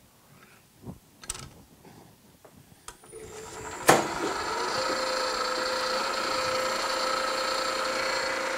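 Small milling machine with a drill chuck: a few light clicks and knocks of handling, then about three seconds in the spindle motor comes up to speed, with a sharp click about a second later, and runs with a steady whine and hum. The spinning drill is not yet cutting the brass.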